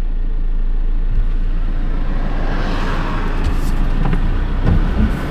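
Converted camper van's engine and road noise, a steady low rumble that swells a little from about halfway through.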